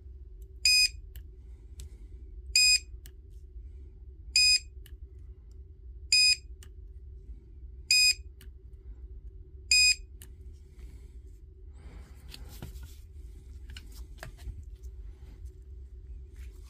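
Electronic beeper sounding six short, high beeps at an even pace, about one every two seconds, then stopping. A steady low hum runs under them, and a few faint clicks follow.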